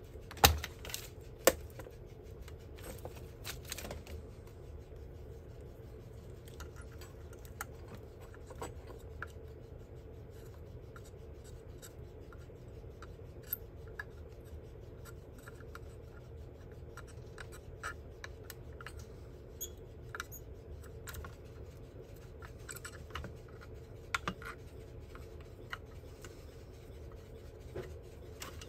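Small clicks and scratches of hand tools working on a circuit board, with two sharper clicks in the first second and a half, then sparse light ticks over a steady low hum.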